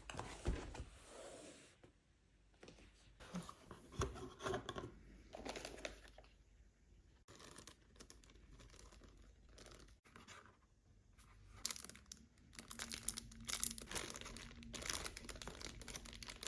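Keyboard packaging being opened by hand: crinkling plastic and cardboard rustling and tearing in irregular bursts, with scattered clicks.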